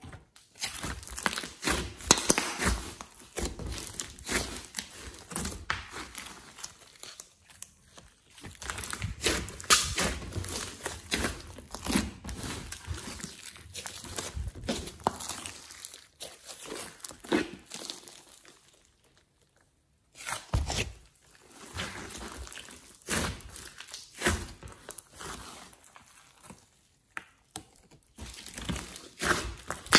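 Hands squeezing, folding and stretching a large mass of slime mixed with clay and glitter, making irregular wet crackling and popping. There is a silent pause of about two seconds roughly two-thirds of the way through.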